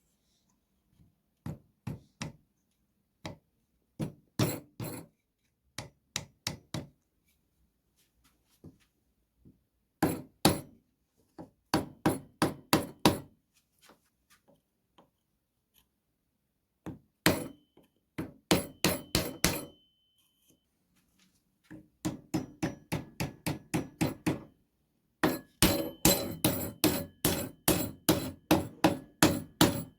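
Hammer blows during an axe-handle repair. They come first in short irregular groups of two to four, then as steady runs of about three strikes a second near the end, some with a faint metallic ring.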